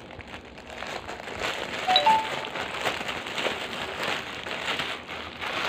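Clear plastic packaging bag crinkling and rustling as it is handled and pulled open, louder from about a second and a half in, with a few short squeaks about two seconds in.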